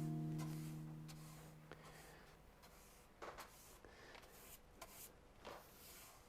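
The last chord of a plucked-string music cue fades out over the first two seconds, then faint rustles and a handful of light taps and clicks of small objects and papers being handled.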